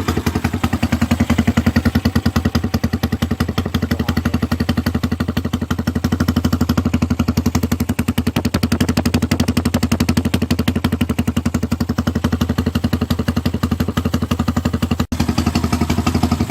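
Honda Sonic motorcycle's single-cylinder four-stroke engine running at a steady idle through a new homemade exhaust with a perforated inner tube, giving an even, rapid train of exhaust beats.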